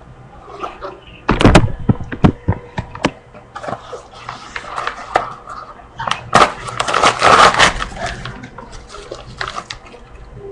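A package being handled and opened close to the microphone: a run of sharp knocks and clicks, then a couple of seconds of loud rustling with more clicks in the middle, and lighter handling noises after.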